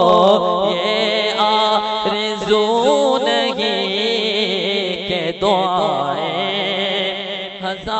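A man chanting a naat (Urdu devotional poem) in long, wavering melismatic notes without clear words.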